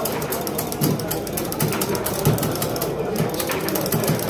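Foosball table in play: fast clicking and rattling of the ball and the figures and rods, with several dull knocks.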